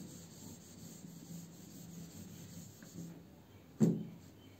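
Whiteboard being wiped clean, a soft, steady rubbing across the board. A single sharp knock near the end.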